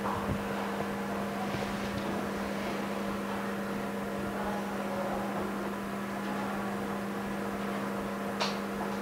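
Steady low electrical hum, with faint handling noise and one short sharp click near the end.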